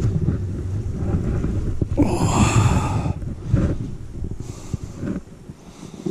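Freshly shot jake wild turkey flapping its wings on the leaf-covered ground in its death throes, with a louder burst about two seconds in. Heavy breathing and wind rumble on the microphone run underneath.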